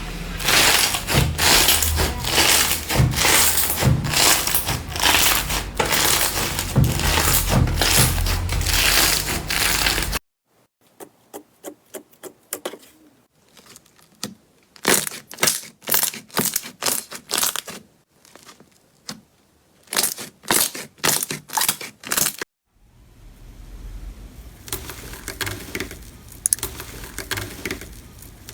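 Slime squeezed and pressed by hand, crackling and popping. Dense crackling for about ten seconds is followed by a run of sharp, separate pops and clicks, then softer crackling for the last few seconds.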